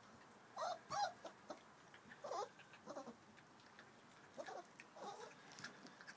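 Four-week-old puppies whining and yipping in a string of short, high calls that bend in pitch, the loudest two about a second in.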